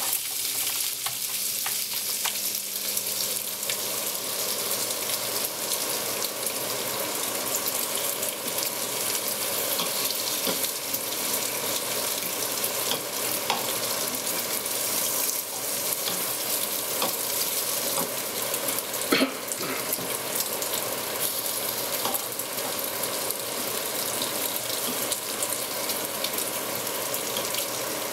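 Smoked breakfast bacon sizzling and crackling steadily in a frying pan, while a metal fork turns the strips, scraping and tapping against the pan. One louder clack about two-thirds of the way through.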